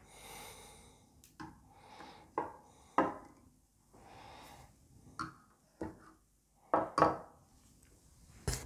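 Statue parts being handled and set down on a table: about ten light knocks and clicks at irregular intervals, with soft rustling between them.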